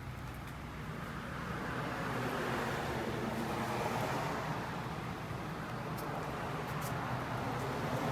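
Road traffic: a passing vehicle's tyre and engine noise swells and fades over a steady low engine hum.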